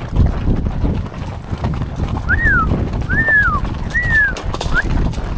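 Horse hoofbeats. From about two seconds in, a high call repeats about once a second; each call rises and then falls in pitch.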